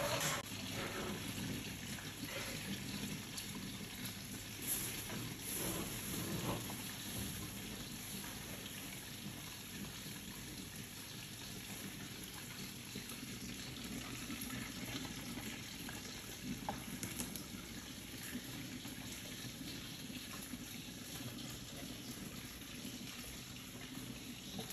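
Steady hiss of water running from a kitchen tap, with a few small knocks and clicks now and then.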